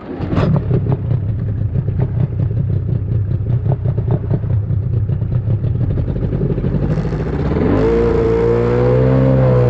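Boat motor running with a rattling clatter, starting suddenly. Near the end it revs up and its pitch rises and then falls back.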